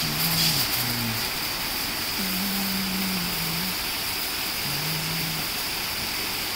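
High-pressure (HTP) cleaning pump running, its water jet hissing steadily against rubber floor mats.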